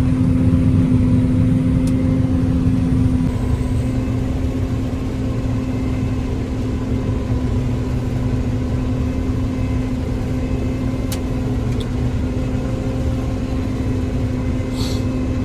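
John Deere 9500 combine running steadily while harvesting soybeans, heard from inside the cab: an even engine-and-machinery drone with a steady hum, easing a little about four seconds in, with a few faint clicks.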